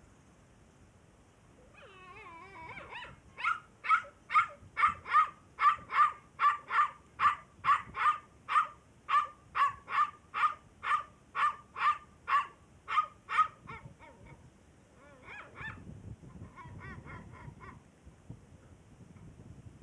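Small puppy yapping at a larger dog. It opens with a wavering whine, then gives a run of about twenty high-pitched yips, about two a second, for some ten seconds, and ends with a few fainter, quicker yips.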